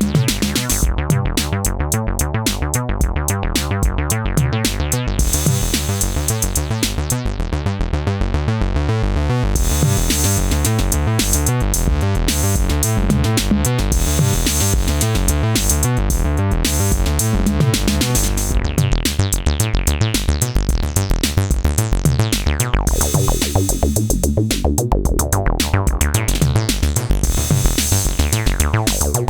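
Synthesizer bass line played over a drum machine beat in a steady electronic groove. About three-quarters of the way through, the filter closes down, dulling the sound, then opens back up.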